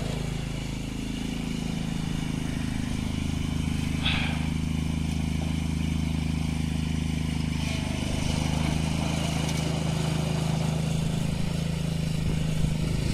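Craftsman GT garden tractor's engine running steadily while it drives with a front-mounted snow thrower attachment, its note dipping slightly about a second in.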